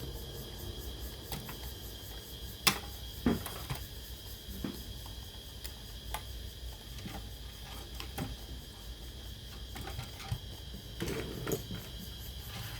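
Irregular mechanical clicks and taps, a few louder knocks among them, over a faint steady high whine.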